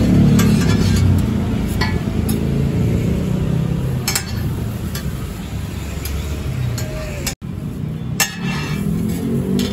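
Street food stall sounds: a steady low rumble with scattered sharp clinks and clicks of metal utensils and dishes. There is a brief cut-out about seven seconds in.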